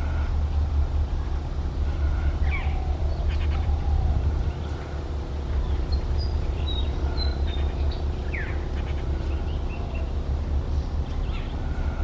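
A group of jungle babblers calling: scattered short squeaky calls and chatters from several birds, over a steady low rumble.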